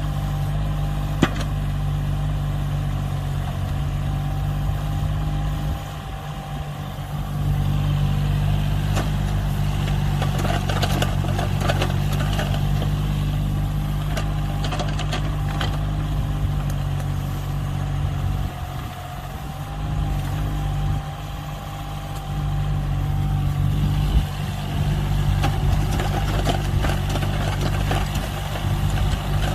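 Excavator's diesel engine running steadily, with a thin whine above the engine drone. The engine sound drops back a few times and then returns, over scattered clanks and knocks.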